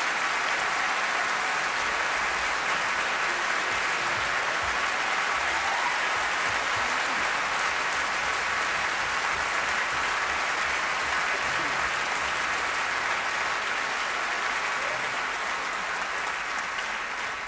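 Large concert-hall audience applauding steadily, dense clapping that begins to die away near the end.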